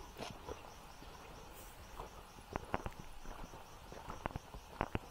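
Faint footsteps on a dirt path, a scatter of soft irregular clicks that starts about halfway through. Behind them an insect chirps steadily, about four pulses a second.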